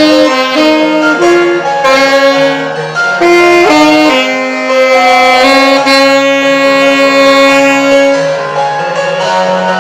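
Alto saxophone playing a melody, with instrumental accompaniment beneath it.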